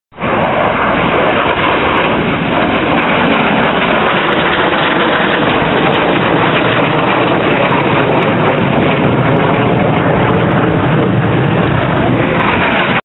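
MiG-15 jet fighter flying past, its turbojet engine making a loud, steady rushing jet noise that cuts off abruptly at the end.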